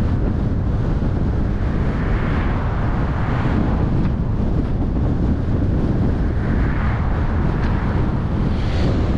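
Wind buffeting the microphone of a moving car over a steady low road and tyre rumble, with hissing swells about two to four seconds in and again around seven seconds.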